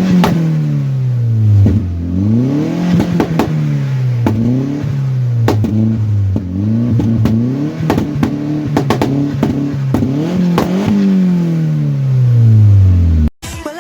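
A Skoda vRS's 1.8-litre turbo petrol four-cylinder is revved repeatedly through its exhaust, the note rising and falling about eight times. Sharp pops and crackles from the exhaust come through as the revs drop, with a long fall near the end.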